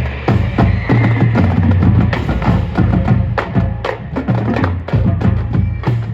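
Marching drumline playing a fast cadence: rapid snare and tenor strikes over pitched bass drums, with sharp rim clicks.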